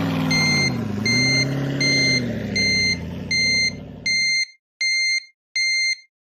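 Truck engine running with a reversing alarm beeping steadily, about one beep every three-quarters of a second. The engine dips in pitch about a second in and cuts out a little after four seconds, while the beeps carry on alone.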